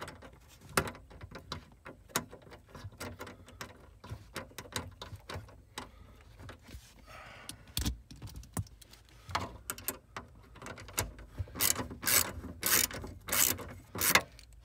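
Socket ratchet clicking as it backs out a 7 mm screw, in short runs of quick clicks that grow loudest near the end.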